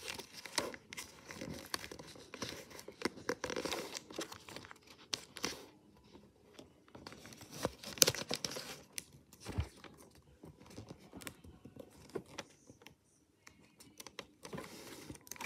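Origami paper rustling and crinkling as hands fold and crease it, in short irregular bursts, with a sharper crackle about eight seconds in.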